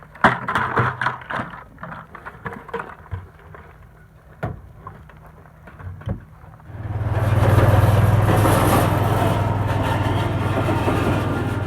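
Scattered knocks and clatter, then about seven seconds in a machine starts up and runs steadily with a low hum and a loud whirring rush.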